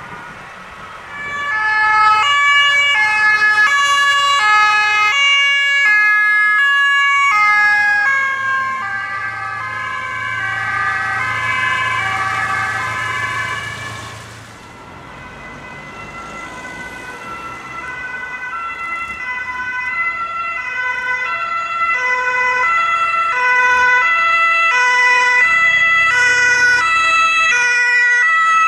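German two-tone emergency-vehicle sirens (Martinshorn) alternating steadily between two pitches, with engine rumble. One passes loudly in the first half and fades, then another grows steadily louder toward the end, over a steady high tone.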